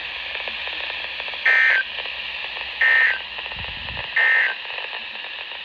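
Three short bursts of warbling EAS/SAME digital data tones from a NOAA Weather Radio broadcast, about 1.4 seconds apart, over steady radio hiss. These are the end-of-message code that closes the warning.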